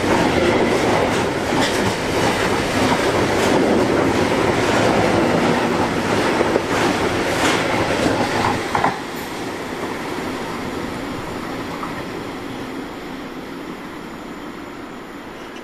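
Freight train of DB Cargo bogie hopper wagons rolling past, wheels clattering on the rails with occasional sharp clicks. About nine seconds in, the last wagon goes by and the sound drops suddenly to a quieter rumble that fades as the train draws away.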